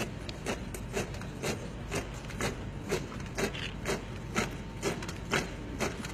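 Boots of a column of soldiers marching in step on a paved parade ground, landing together about twice a second in a steady beat.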